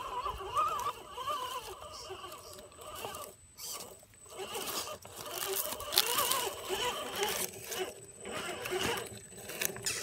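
Scale RC crawler's small electric motor and geared drivetrain whining, the pitch rising and falling with the throttle, with scattered clicks and crunches from the tyres on rocks and dry leaves.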